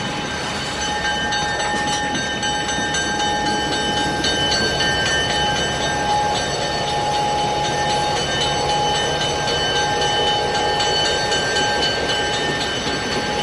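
Mining freight train rolling steadily, a continuous rumble with a thin, steady high tone held over it and faint clicks from the wheels.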